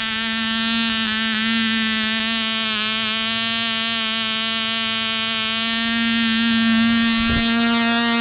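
Cox .049 two-stroke glow engine of an E-Z Bee Sport model plane running at full speed: a steady, high-pitched buzz that wavers slightly in pitch. A brief thump comes about seven seconds in.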